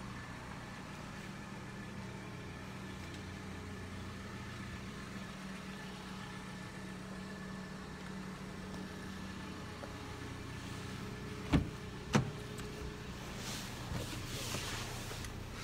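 A new Mercedes-Benz C-Class idling with a steady low hum. About two-thirds through, two sharp knocks come half a second apart from the car's door, followed by rustling.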